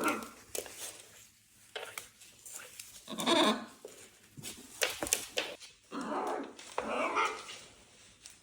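A pet animal making short rough calls, three or four in all, mixed with sharp clicks and scuffling during rowdy play.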